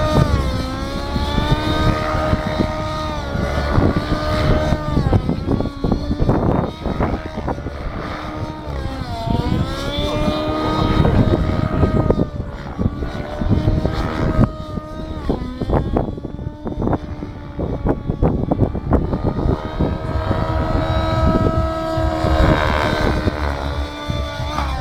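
Radio-controlled model aircraft motor running at high speed, its pitch dipping and rising again several times as it is throttled and flies past. Heavy wind rumble on the microphone underneath.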